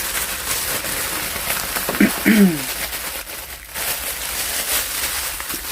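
Sandwich wrapping rustling and crinkling steadily as it is handled and packed up.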